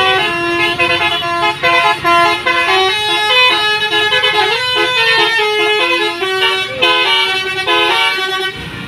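Indonesian bus 'telolet' horn, a multi-tone musical air horn, playing a loud melody of quick stepped notes over the low running of the bus engine, cutting off near the end.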